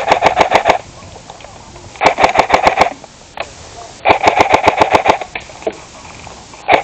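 Rifle-style game gun fired on full-auto in short rapid bursts of about ten shots a second: three bursts of roughly a second each with gaps of about a second, and a fourth starting at the very end.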